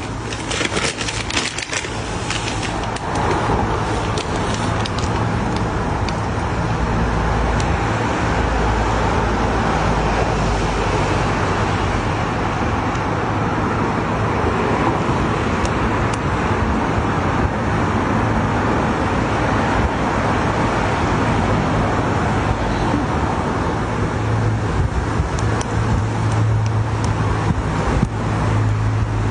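Steady rumbling background noise with a low hum, and a cluster of sharp clicks in the first few seconds.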